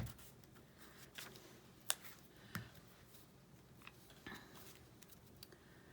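Quiet handling of paper and small craft tools while a paper stamp is glued down: a few soft, separate clicks and taps, the sharpest about two seconds in.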